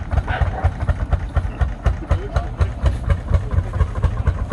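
Lanz Bulldog tractor's single-cylinder hot-bulb two-stroke engine chugging with a fast, even, low beat as the tractor drives along.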